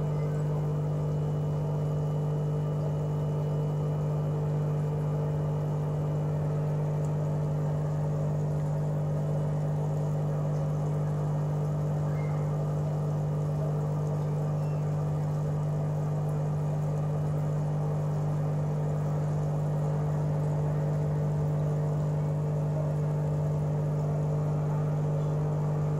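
A steady machine hum with a strong low tone and fainter higher tones above it, unchanging in pitch and level throughout.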